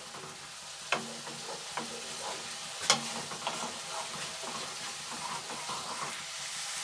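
Thick spice masala sizzling in oil in a non-stick kadai while a wooden spatula stirs and scrapes through it, with two sharper knocks of the spatula about one and three seconds in. The masala is being fried down (koshano) until it dries and the oil separates.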